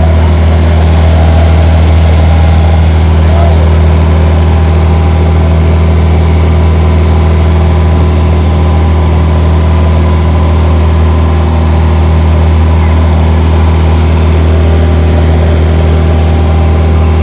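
A large engine running steadily: a constant loud low drone with an even hum above it, and faint voices in the background.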